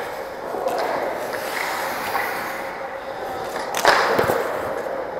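Ice hockey skate blades scraping and carving across the ice, with a sudden, louder scrape just before four seconds in.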